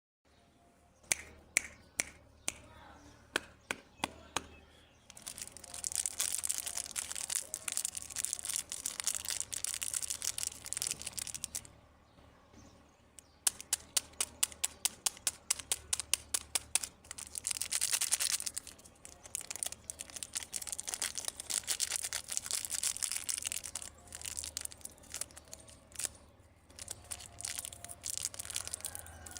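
Plastic candy and toy wrappers being handled and torn open. It opens with a run of sharp clicks and snaps, then long stretches of crisp crinkling and tearing, broken by another quick run of clicks midway.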